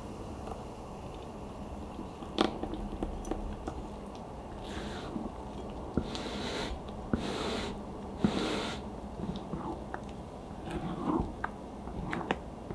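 A spatula folding whipped cream and a yogurt mixture together in a glass bowl: soft, wet, squishing strokes, with a few sharp taps of the spatula against the glass.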